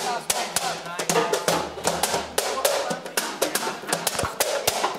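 Hand percussion: palms slapping the round wooden seats of bar stools in a quick run of sharp strokes, played along with a djembe.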